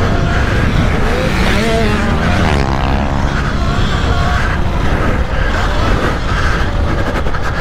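Several pit bike engines revving on the track, their pitch rising and falling, with one swelling up close around three seconds in.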